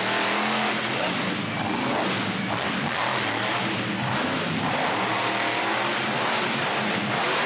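Monster truck engine running at high revs as the truck spins donuts on dirt, tires spinning and throwing up smoke.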